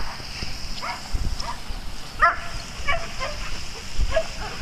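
Dog barking repeatedly in short, high-pitched barks, several in quick succession, the loudest about two seconds in.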